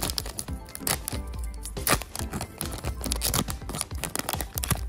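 Foil Cookie Run Braverse booster pack crinkling and tearing as it is ripped open by hand, a quick run of sharp crackles with a louder rip about two seconds in. Background music plays underneath.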